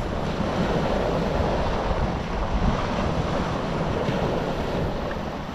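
Waves washing on the beach with wind buffeting the microphone, a steady rushing noise.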